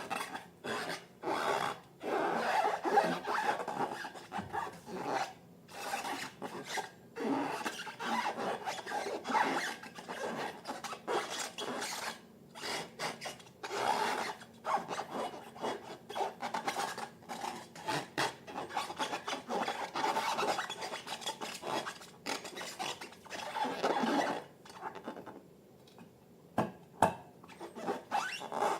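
Irregular rubbing and scraping strokes, one after another with short pauses, from balloons and slime being handled and worked by hand.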